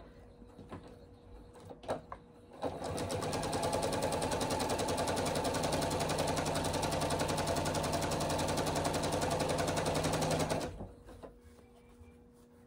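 Electric domestic sewing machine stitching bias-tape binding onto a cloth face mask: a couple of small clicks, then about three seconds in the motor starts and runs at a steady stitching speed for about eight seconds before stopping near the end.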